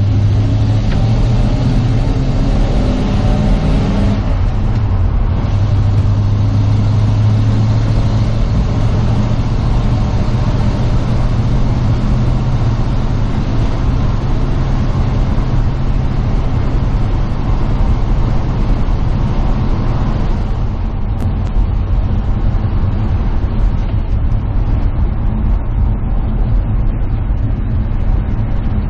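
Old pickup truck heard from inside its cab, the engine running steadily under road and wind noise. The engine note changes about four seconds in, and the higher hiss thins about twenty seconds in.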